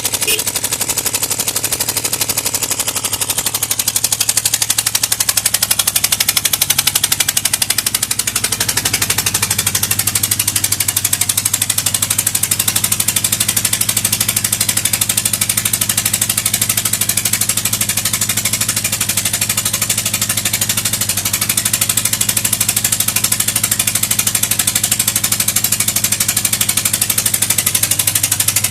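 Yamaha XS1100's air-cooled inline four-cylinder engine idling, a fast, even firing beat, with the level rising a little between about four and eight seconds in. The seller describes its idle as unsteady but reports no abnormal noise.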